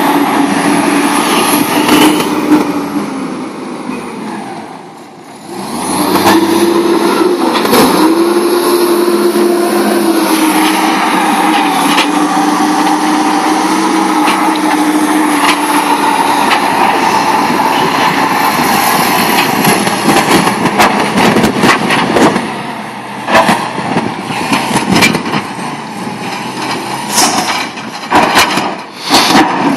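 Engine of a Pettibone Cary-Lift rough-terrain pipe loader running under load. It drops back about five seconds in, then revs up at about six seconds and holds a steady note. In the last third it gives way to uneven rattling with many short knocks.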